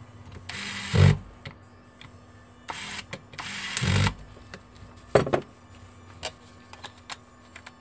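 Small electric precision screwdriver running in three short bursts, driving screws into a mobile phone's plastic housing. A few sharp light clicks follow from the second half on, as the phone is handled.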